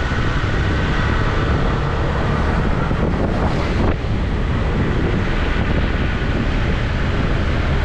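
Steady wind buffeting the microphone with a deep rumble, dipping briefly about four seconds in.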